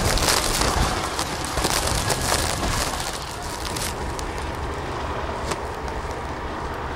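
Wind and blowing snow rushing on the microphone in a blizzard, with sharp crackling clicks. About four seconds in it drops to a duller, softer rush with occasional clicks.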